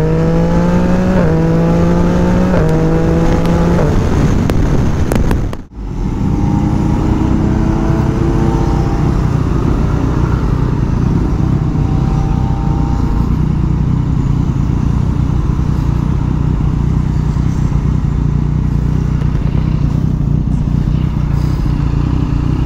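Motorcycle engine and exhaust accelerating through the gears, each gear rising in pitch and dropping back at three quick upshifts in the first four seconds. After a brief break about six seconds in, the engine runs lower and steadier at low speed.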